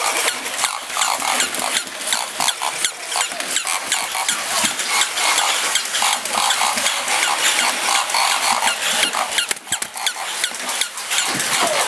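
Battery-powered walking toy animals running: the small motors and plastic gears of several toys whirring and clicking rapidly, a dense mechanical rattle.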